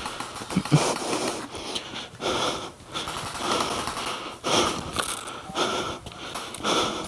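A person breathing hard close to the microphone, with wheezing breaths about once a second.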